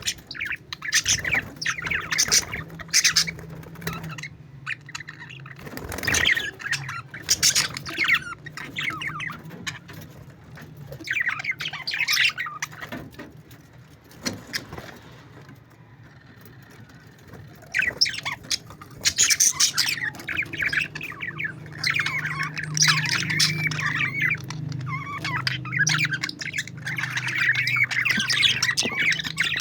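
A group of parakeets chattering and squawking, their calls coming in bursts, a brief lull about halfway, then near-continuous warbling chatter to the end.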